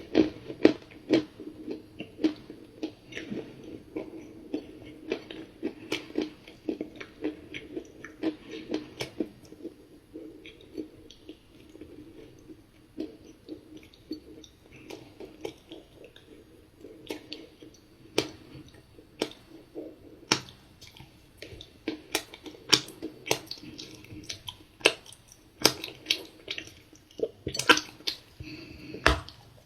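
Close-up chewing of dry, crumbly cookie chunks: irregular crunching crackles, more frequent and louder in the second half.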